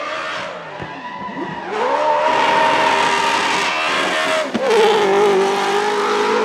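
Drift car sliding sideways with its tyres squealing, the engine note climbing about a second and a half in and held high through the slide. About four and a half seconds in the engine note breaks off sharply, then settles into a steady, slightly wavering note.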